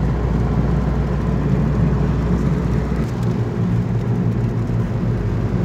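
Car engine and road noise heard from inside the cabin while driving, a steady low hum. The engine note shifts and the deepest rumble drops about three seconds in.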